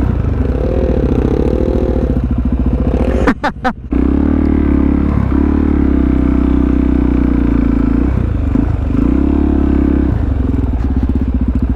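Supermoto motorcycle engine running under changing throttle, its pitch rising and falling several times, with a short break in the engine note a little over three seconds in.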